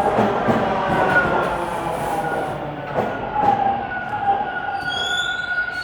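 Toronto subway train running along the platform, with a dense rumbling and steady tones from its wheels and motors. High squealing tones come in near the end as the noise eases.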